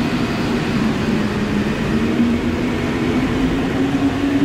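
Metro train at an underground station platform, running with a steady rumble and a low hum that dips in pitch around the middle and rises again toward the end.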